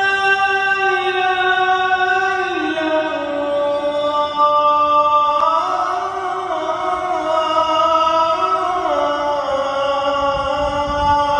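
A man's solo voice chanting in long, drawn-out held notes that step slowly down and back up in pitch.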